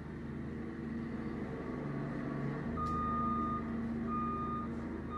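ASV compact track loader's diesel engine running steadily while it works dirt. A reversing alarm beeps twice in the second half, each beep a single steady tone lasting under a second.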